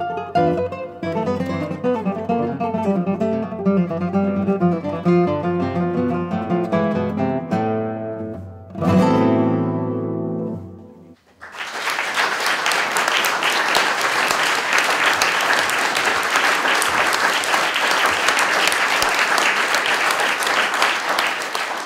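Two classical guitars play the close of a piece, a fast rising run leading into a loud final chord about nine seconds in that rings for a couple of seconds. After a brief pause the audience applauds steadily.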